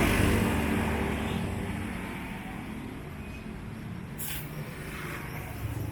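A motor vehicle's engine running with a low hum, loudest at first and fading over the first few seconds, with a sharp click about four seconds in.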